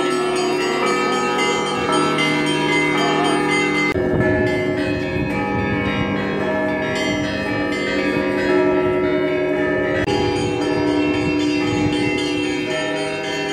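Orthodox church bells ringing a continuous festive Easter peal, many bells of different pitches sounding and overlapping. A low, noisy rumble joins in from about four seconds in.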